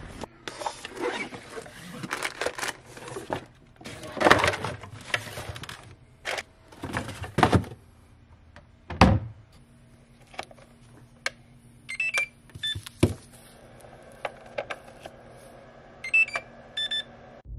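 Boxes and gear rustling and clattering as they are handled, with a couple of sharp knocks. Later a Traxxas EZ-Peak Live Dual RC battery charger gives short electronic beeps as its button is pressed, a few around halfway through and another cluster near the end.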